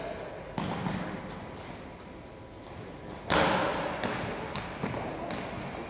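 A thrown goalball, a rubber ball with bells inside, hits the hardwood court with one loud slam about three seconds in, echoing in the gym, then rattles and clicks as it rolls toward the defenders. A smaller thud comes about half a second in.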